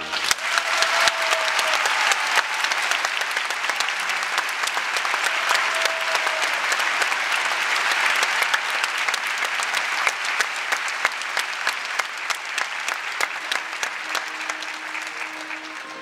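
Audience applauding: dense, steady clapping that thins a little toward the end.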